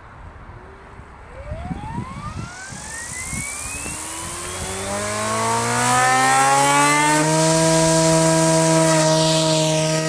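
Electric motor and rotor of an SAB Goblin Fireball RC helicopter spooling up: a rising whine from about half a second in, with the rotor's pitch climbing and levelling off at head speed around seven seconds in, then blade noise as it lifts off near the end. A vibration is heard during the spin-up, which the owner suspects comes from the motor, since new bearings did not cure it.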